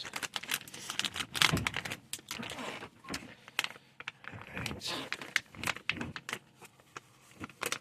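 Packaging of a toy mystery pack being torn open and handled: crinkling, rustling and a quick run of small clicks and taps.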